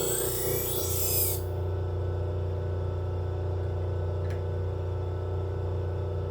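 Motor of a knife-sharpening wheel machine running with a steady hum. A steel blade rasps and squeals against the abrasive wheel for about the first second and a half, then lifts off, leaving only the motor, with one faint tick a little past the middle.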